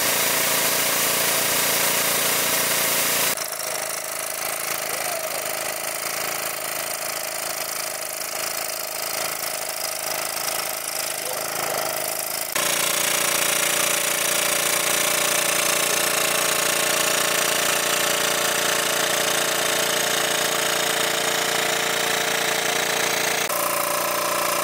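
Engine-driven large-capacity water pump running steadily, a continuous mechanical drone with a hiss over it. The sound drops in level abruptly a few seconds in and comes back up just past halfway.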